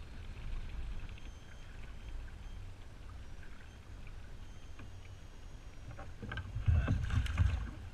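Wind buffeting the microphone and water lapping against a kayak hull, a steady low rumble. Near the end come a cluster of louder knocks and rattles as the stringer of fish is handled aboard the kayak.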